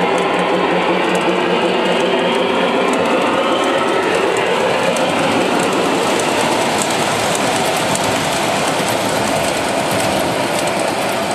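O-scale model train running: a steady rumble and whine of motor and wheels on the track, with many rapid, irregular clicks of wheels over the rails.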